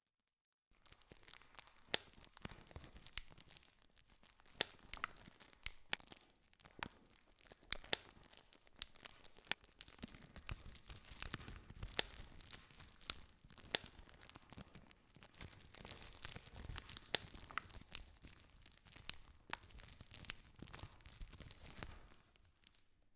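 Campfire crackling: many sharp snaps and pops over a steady hiss. It starts abruptly just under a second in and cuts off suddenly near the end.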